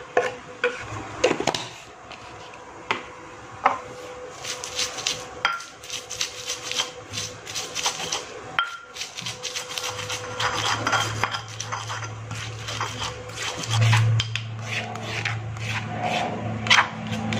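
Shallots, garlic and chilies knocked and scraped off a wooden board with a knife into a stone mortar, then ground with a stone pestle (cobek and ulekan): repeated rasping and knocking of stone on stone. A low steady hum comes in during the second half.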